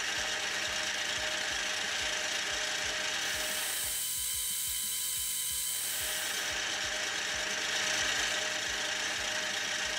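Metal lathe running while a turning tool faces off the end of a small 1045 steel pin, cutting away its center-drill mark. It is a steady machining sound with faint irregular ticking, and its tone shifts for a couple of seconds in the middle.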